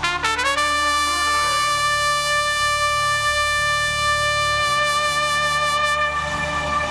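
Solo trumpet scooping up into one long, held note and sustaining it, over a soft low sustained accompaniment.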